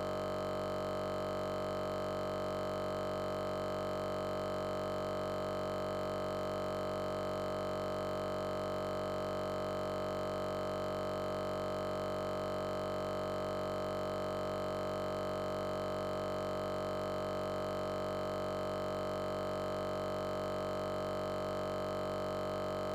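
A steady electronic drone of several held tones at once, strongest in the middle range, not changing at all in pitch or loudness.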